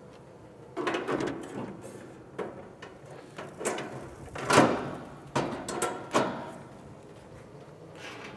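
Steel rotisserie basket and spit being set into a gas grill's rotisserie mounts: a run of metal clanks, knocks and scrapes, a few with a brief metallic ring, the loudest about four and a half seconds in.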